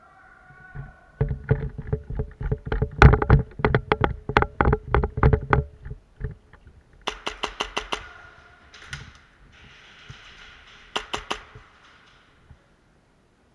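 Airsoft guns firing in rapid bursts, a fast run of sharp cracks and knocks for several seconds, then shorter bursts of quick shots twice more near the end, with a hiss between the bursts.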